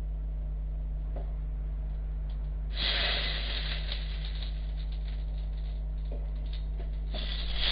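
Sauce sizzling as it is spooned into a hot frying pan with a seared pork rib in it. The sizzle starts suddenly about three seconds in, dies down slowly, and flares up again near the end when more sauce goes in, over a steady low hum.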